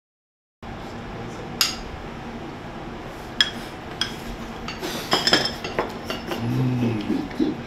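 Spoons clinking and scraping against small dishes as fried rice is scooped and tasted: scattered single clinks, then a quick cluster a little after the middle. Near the end a person makes a short voiced hum.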